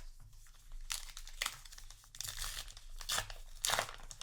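Foil wrapper of a trading card booster pack crinkling and tearing as it is handled and opened, in several short rustling bursts.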